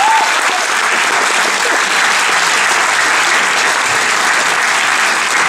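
Audience applauding steadily: a dense, even clapping from a crowd.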